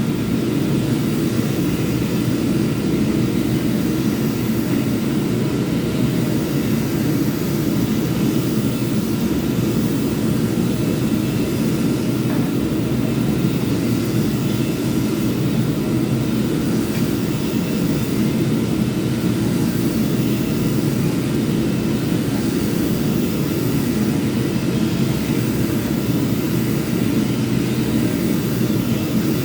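Electric power sander running steadily, a constant drone with a noisy hiss over it.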